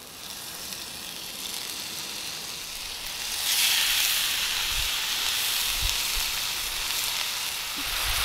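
Homemade burgers frying in a pan over a Bush Box stove: a steady sizzle that grows sharply louder about three seconds in.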